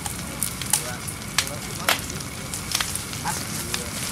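Open fire of dry sticks and palm fronds crackling, with irregular sharp pops over a steady hiss.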